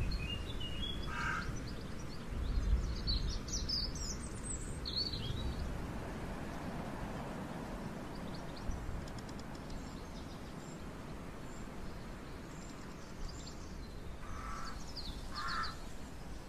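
Wind rumbling on the microphone with birds calling: a burst of high chirps a few seconds in, and short calls about a second in and twice near the end.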